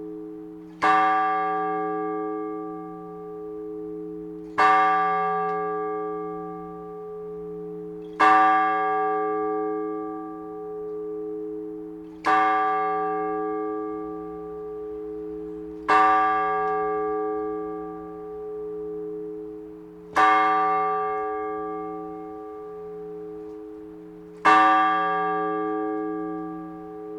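A single large Orthodox church bell is struck seven times at a slow, even pace, about once every four seconds. Each stroke rings out and dies away, and the bell's deep hum carries on between strokes. This is the measured ringing of one big bell known as the blagovest, which announces the start of a service.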